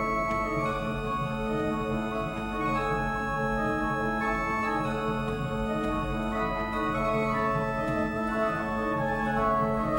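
A 57-rank Noack pipe organ playing: long held tones under shorter notes that change and repeat every fraction of a second, at a steady level.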